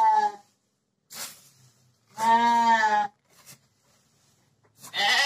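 Sheep bleating: three calls of about a second each, one just ending at the start, one about two seconds in, and one near the end. There is a faint short rustle between the calls.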